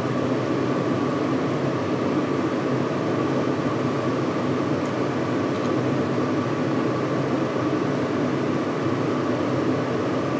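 A steady fan-like whir with a faint, even hum that does not change.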